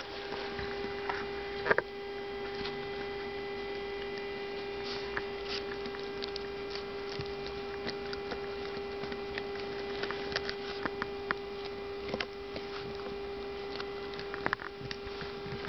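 A steady electrical hum, with scattered small clicks and crunches of a puppy gnawing a chew treat.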